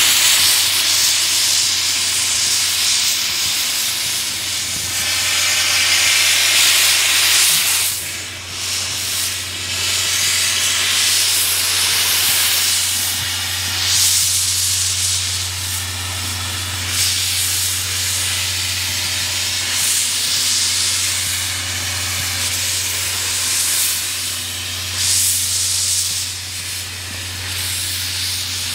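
Steam locomotive C56 160 hissing steam without a break, the hiss swelling and easing, loudest around five to eight seconds in, over a steady low hum.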